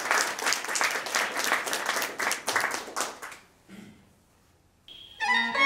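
Audience applauding, the clapping dying away about three and a half seconds in. Near the end, instrumental music with bowed strings begins: the accompaniment to a Cantonese opera aria.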